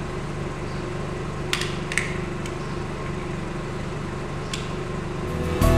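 Steady mechanical hum in the workshop, with three light clicks from handling the additive tin and oil filler at the engine, about a second and a half, two seconds and four and a half seconds in. Music comes in right at the end.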